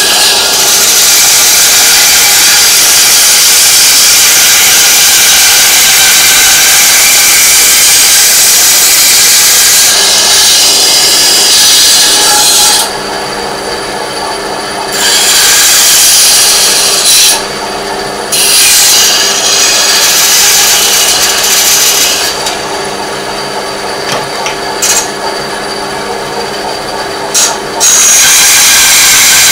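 Electric power tool working metal: a loud abrasive hiss over a steady motor hum. It eases off and bites in again several times, with a quieter stretch in the second half, and bites in hard again near the end.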